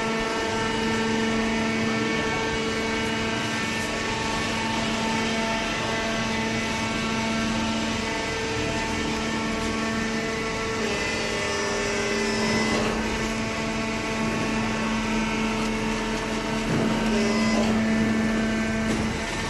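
Hydraulic baler's power unit running: a steady pitched hum with even overtones, its tone shifting slightly about two-thirds of the way through.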